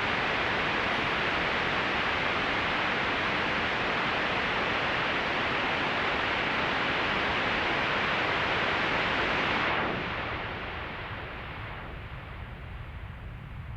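Synthesized noise from the noise oscillator of Ableton's Analog synth: a steady, even hiss. About ten seconds in, it is filtered darker and quieter, its highs falling away until mostly a low rumble remains.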